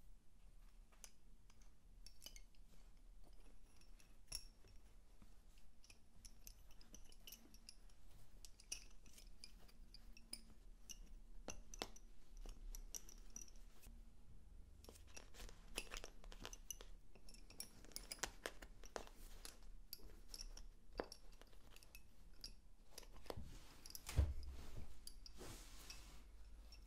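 Wooden Honiton lace bobbins clicking lightly against one another as they are crossed and twisted. There is a faint scatter of small clicks, busier in the second half, with one louder knock near the end.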